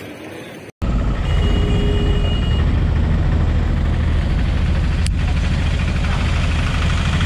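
Auto-rickshaw engine running with a rough, steady low rumble, heard from inside the moving auto-rickshaw. It starts abruptly about a second in, after a moment of quieter outdoor sound.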